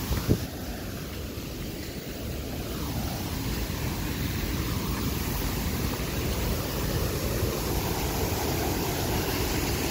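Small stream rushing over rocks, a steady hiss of running water that grows a little louder, with a single knock just after the start.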